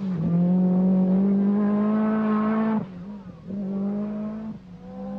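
Lancia Delta S4 Group B rally car's twin-charged 1.8-litre four-cylinder engine running hard at high revs with a steady pitch. The note drops away briefly twice, about three seconds in and again about a second and a half later, then picks up again.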